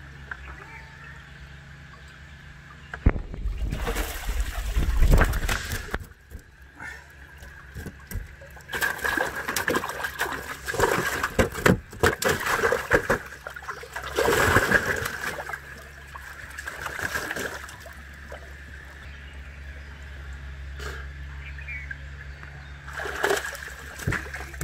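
Water splashing and sloshing in several bursts as a man wades chest-deep beside a boat and handles fish in a water-filled, tarp-lined hold, over a steady low hum.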